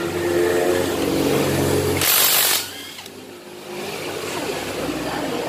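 Handheld power tool motor running steadily for about two seconds on an engine bolt, ending in a short, loud burst of noise; afterwards quieter clinks of tools on the engine case.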